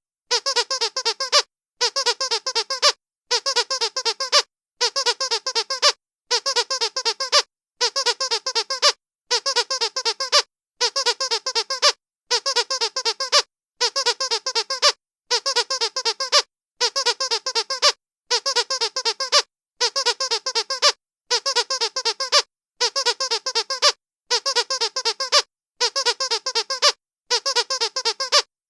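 Dog squeaky toy squeezed in quick runs: about a second of rapid squeaks, then a short gap, repeating evenly about every one and a half seconds.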